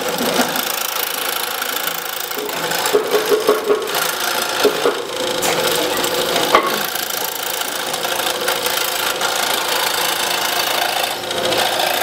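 Excalibur scroll saw running, its thin reciprocating blade cutting through a thin board held down on the table. A steady, fast stroking noise, with a few louder clicks between about three and seven seconds in.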